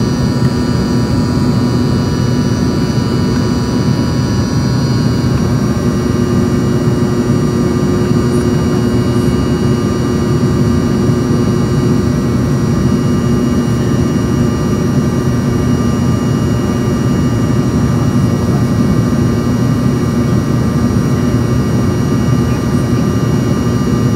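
Embraer EMB-145's rear-mounted Rolls-Royce AE 3007 turbofans heard inside the cabin during the climb after takeoff: a loud, steady rumble with high whining tones over it, the tones shifting slightly about five seconds in.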